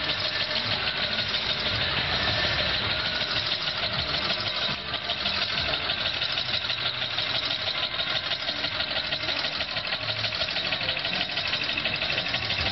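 Single-cylinder engine of an 1885 Daimler Reitwagen replica running steadily while the wooden-framed motorcycle is ridden slowly.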